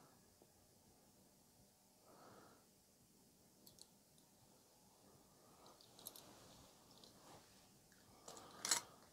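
Near silence, with a few soft clicks about six seconds in and a short cluster of them near the end, from small die-cast toy vehicles being handled.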